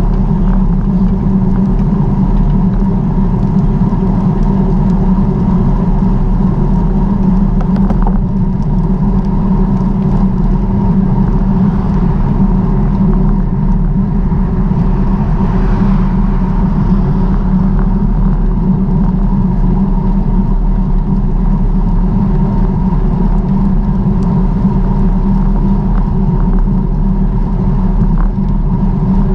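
A loud, steady low rumble with a constant droning hum, unchanging throughout, like a vehicle or wind-and-road noise while travelling.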